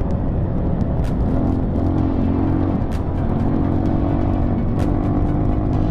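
Dirt bike engine running at riding speed under heavy wind noise on the bike-mounted microphone. Its pitch swells and eases every second or two, with sharp clicks about every two seconds.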